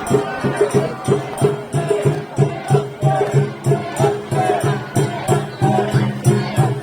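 Sawara festival-float hayashi: taiko drums beating a quick, steady rhythm, a bamboo flute playing short wavering phrases, and a small hand gong clanking along.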